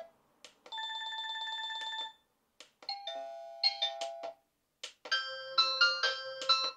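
A digital wall clock's built-in speaker plays short previews of its electronic alarm tunes one after another. First comes a fast-pulsing beep tone, then two short chime melodies, with a click and a brief gap before each.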